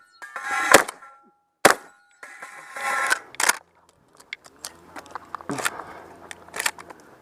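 Benelli Super Black Eagle semi-auto shotgun firing about five shots at uneven intervals, the first two close together. Struck steel targets ring after the early shots, and small clicks of gun handling fall between the later ones.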